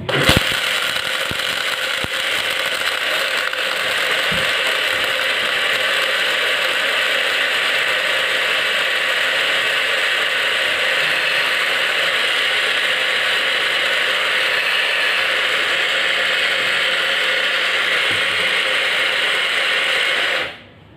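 Vitamer 500 ml portable blender running steadily as it blends a mango shake. It switches on right at the start, holds an even level for about twenty seconds, then cuts off suddenly near the end.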